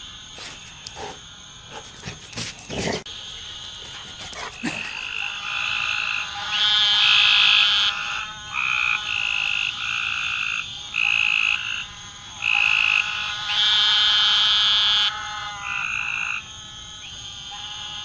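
A loud chorus of frogs calling: a run of pitched, buzzy calls, each about half a second to a second and a half long, starting about four seconds in. A few sharp knocks come before the calls begin, and a steady high tone runs underneath.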